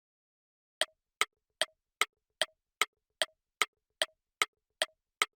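Ticking clock sound effect: a steady run of sharp ticks about two and a half a second, each with a short pitched blip, starting about a second in.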